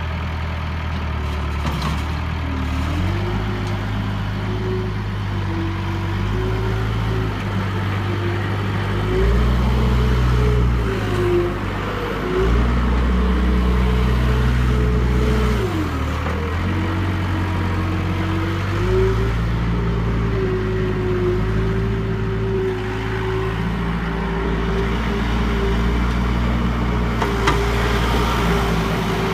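A 2006 Case 70XT skid steer's diesel engine running, its note shifting up and down several times as it works. A whining tone dips and rises along with it, and the sound grows louder for a few seconds about a third of the way through.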